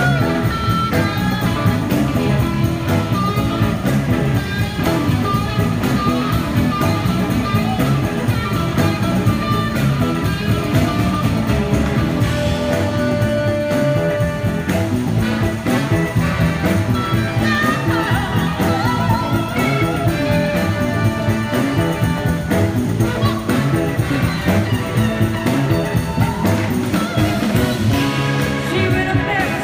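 Live soul-rock band music at full volume: electric guitars playing over the band, with a horn section.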